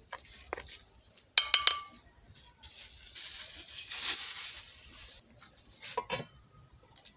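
Cooking utensils clinking a few times with a short metallic ring about a second and a half in, then a steady hiss for about two and a half seconds, and a couple more knocks near the end.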